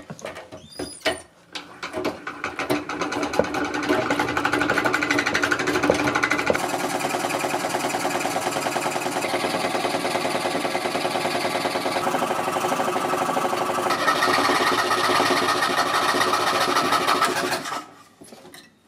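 Treadle-driven scroll saw cutting steel plate with a thin blade, an oil-lubricated cut: a fast, even chatter of the reciprocating blade and treadle mechanism. It builds up over the first few seconds and stops about a second before the end.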